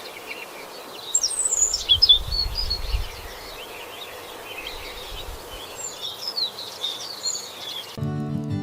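Several birds chirping and singing over a steady hiss of outdoor ambience, with a low rumble a couple of seconds in. Acoustic guitar music comes back near the end.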